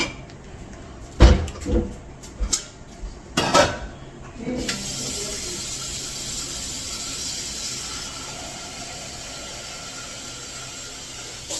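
A few knocks and clatters of kitchen items being handled, then a kitchen tap turned on at about four and a half seconds, water running steadily into the sink.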